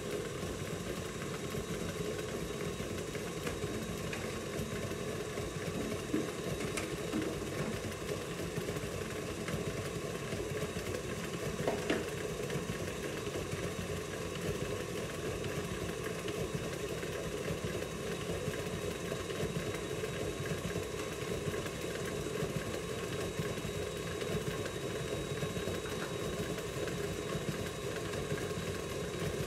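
KitchenAid tilt-head stand mixer running steadily, its motor humming as it creams butter and sugar for cookie dough. A couple of light knocks come over it.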